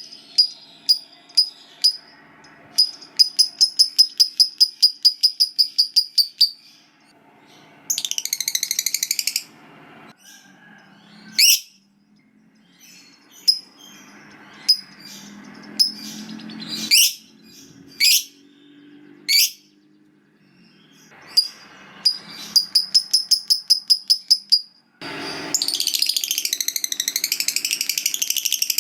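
Lovebird calling: sharp high single chirps, runs of rapid repeated chips about five a second, and buzzy chattering trills, the 'ngekek' chatter prized in song lovebirds, the longest starting a few seconds before the end.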